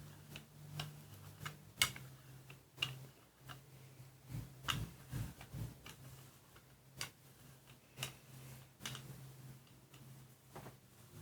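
Rubber brayer rolling paint back and forth across a gel printing plate, giving irregular sticky clicks and ticks, over a steady low hum.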